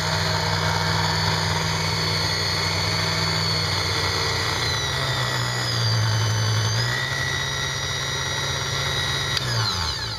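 Countertop blender motor running steadily as it blends a jar of mixed food, its pitch shifting briefly about halfway through. Switched off near the end, the motor winds down.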